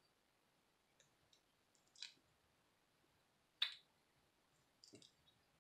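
Boiled crawfish shell cracked and peeled apart by hand: a few faint clicks and crackles, the sharpest about three and a half seconds in.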